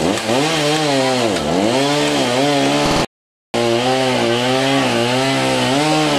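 Two-stroke chainsaw cutting tree branches. Its engine pitch dips and recovers over and over as it bogs under the cut, then runs steadier. The sound cuts out completely for about half a second a little before halfway.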